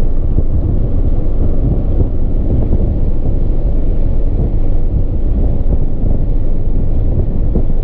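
Car driven hard on a race track, heard from inside the cabin: a steady loud rumble of engine and road noise with wind buffeting the microphone.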